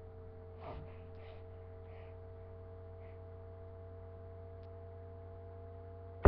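A steady hum: a low drone with two fainter steady tones above it, with a few faint brief soft sounds in the first couple of seconds.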